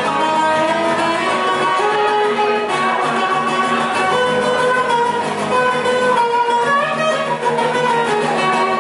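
Live rock band music. A melodic lead of long held notes runs over strummed guitar accompaniment.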